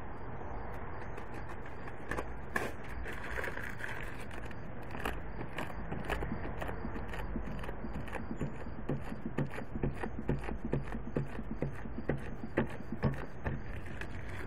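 Crumpled paper dabbed again and again onto a wet spray-painted board, making a run of sharp crinkling taps that come about three a second in the second half, over a steady low hiss.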